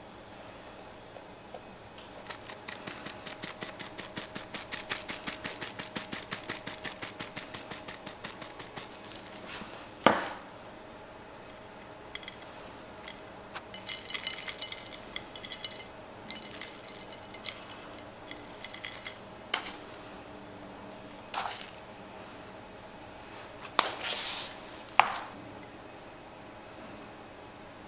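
Dessert-topping handling sounds as crushed nuts and chocolate sauce go onto a croffle. There is a run of quick, even clicks for several seconds, then a sharp knock about ten seconds in, followed by scattered scratchy, squeaky bursts and a few taps near the end.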